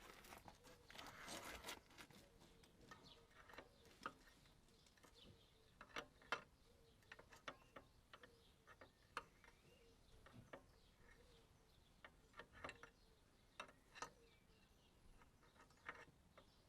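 Quiet, irregular clicks and clinks of a hand spanner working on a steel bolt, with a short scrape about a second in.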